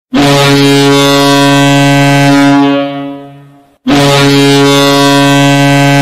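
Kahlenberg KM-135 ship's air horn sounding as a hockey goal horn. It gives two long, loud blasts of one deep, steady note: the first is held nearly three seconds and then dies away, and the second starts just under four seconds in.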